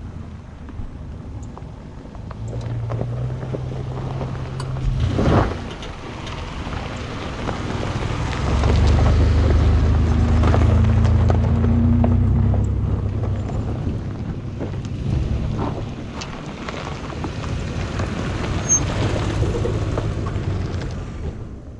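A line of 4x4 trucks and SUVs drives past one after another on a gravel track, their engines swelling as each comes close and fading as it goes. Tyres crunch on the gravel, and there is a sharp knock about five seconds in. The loudest pass is from about nine to thirteen seconds in.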